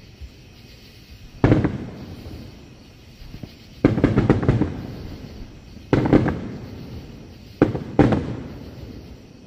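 Aerial fireworks shells bursting: five heavy booms spaced one to two seconds apart, two of them followed by a quick run of smaller cracks.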